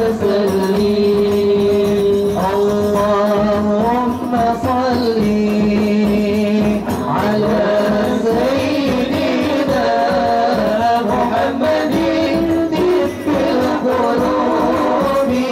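Hadroh sholawat music: a male lead singer holds long, ornamented lines through an amplified microphone over a steady beat of rebana frame drums.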